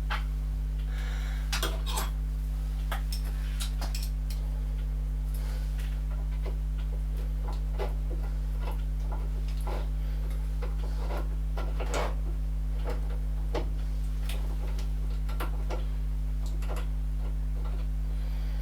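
Small metal parts and tools clicking and clinking as they are handled, irregularly every second or so, over a steady low hum.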